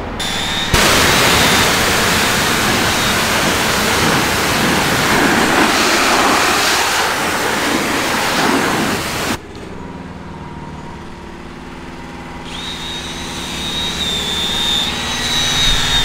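Pressure washer jet blasting a removed transfer case clean, a loud steady hiss that cuts off abruptly about nine seconds in. Then a quieter steady hum follows, with a high thin whine joining near the end.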